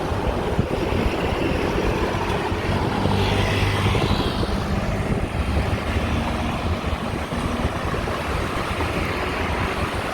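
Road traffic on a busy multi-lane road, with one vehicle's engine swelling past about three to five seconds in. Wind rumbles on the microphone of a moving bicycle throughout.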